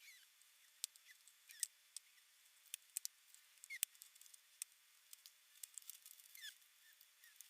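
Faint, scattered clicks and light rustles of small plastic accessories and packaging being handled, with a few short squeaks.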